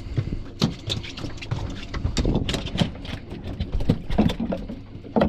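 Irregular knocks and clunks of gear being handled against a small fiberglass skiff's hull and deck, over a steady low rumble.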